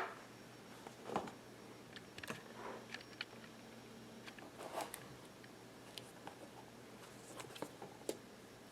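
Hands handling a watch box and its packaging during an unboxing: a string of small clicks, taps and soft rustles, irregularly spaced.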